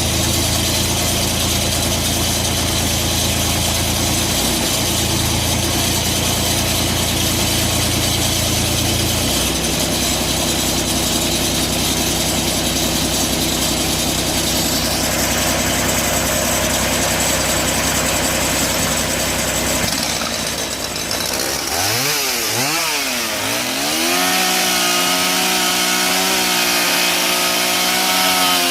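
Small gasoline engine running steadily, its tone shifting once about a third of the way in. It is then revved up and down a few times and held at high speed.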